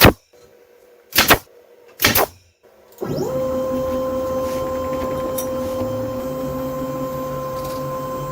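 A few sharp knocks, then a router spindle, such as a desktop CNC router's, spinning up about three seconds in with a quick rising whine and running at a steady high speed.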